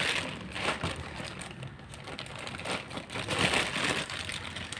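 Plastic packaging rustling and crinkling, with small irregular clicks, as a wiring harness is handled and unwrapped.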